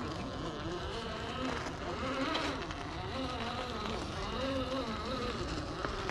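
Electric motor and gear drivetrain of an Axial SCX10 III RC rock crawler whining as it climbs over rocks, the pitch rising and falling every half second or so with the throttle.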